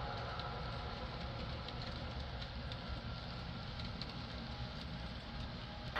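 HO scale model locomotive's sound decoder playing a steady engine rumble through its small speaker, with faint light ticks scattered through it.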